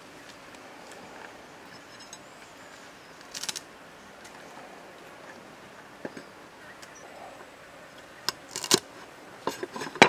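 Knife cutting spring onion stalks on a wooden chopping board: a few sharp taps in quick clusters near the end, the loudest just before it ends. A brief crackle of handled leafy stems comes about three and a half seconds in.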